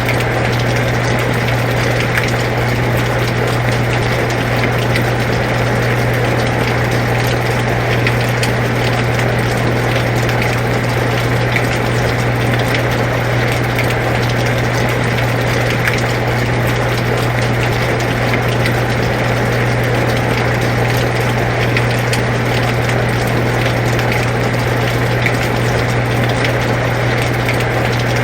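Air conditioner running with a steady low hum, mixed with the even hiss of falling rain and scattered drop ticks.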